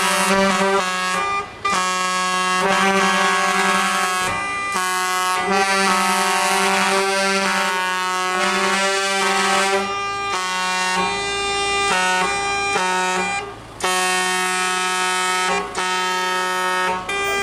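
Semi-truck air horns blaring in long blasts, several tones sounding together as a loud chord. The chord breaks off briefly a few times and shifts to a lower pitch partway through.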